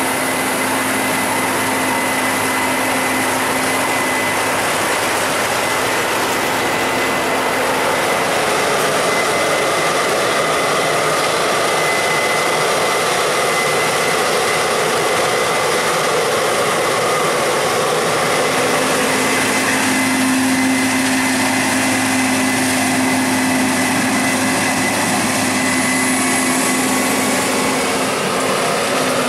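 Heavy harvest machinery running steadily: a diesel engine with a steady high whine over a constant mechanical din.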